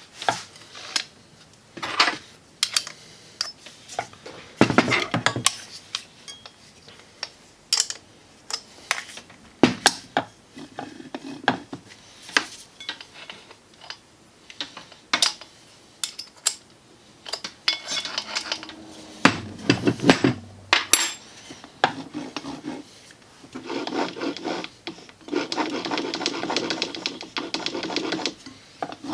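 Irregular metal clinks, knocks and scraping from handling angle grinders and tightening down their spindle flange nuts, with a denser stretch of rubbing and rattling near the end.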